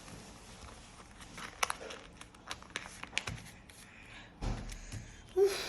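Sheet of paper being folded and creased by hand: a run of short crinkles and taps, a dull bump about four and a half seconds in, and a brief louder sound near the end.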